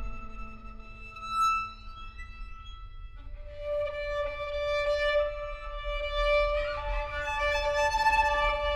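Violin and viola playing slow, sustained notes in a contemporary chamber piece. A few notes slide upward between about one and three seconds in, then from about three seconds in more held notes enter and layer together.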